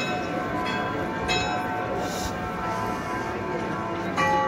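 Tuned bells of the Olomouc astronomical clock chiming a slow tune. Notes of different pitches are struck one after another and left ringing, with a gap before the next note near the end.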